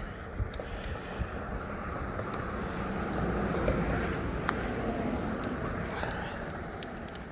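A vehicle passing, growing louder towards the middle and fading again, over a low rumble of wind on the microphone, with a few faint clicks.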